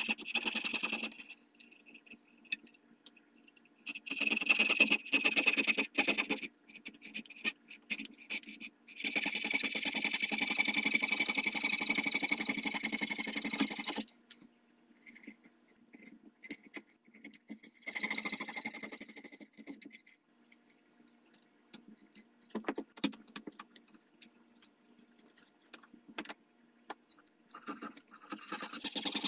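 Coping saw cutting out an opening in a thin wooden rifle handguard, in runs of rapid scraping strokes broken by pauses, the longest run lasting about five seconds near the middle. Small clicks and taps sound in the pauses.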